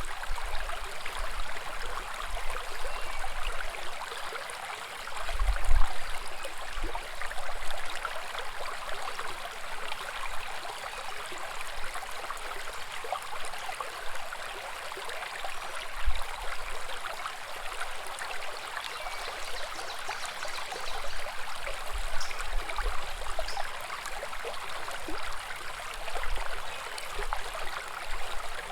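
Woodland brook babbling and gurgling steadily over rocks, with a few brief low thumps, the loudest about five seconds in.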